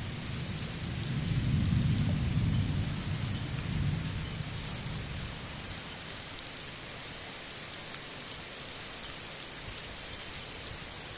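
Heavy rain pouring steadily, with a low rumble of thunder that builds about half a second in and fades away by around five seconds.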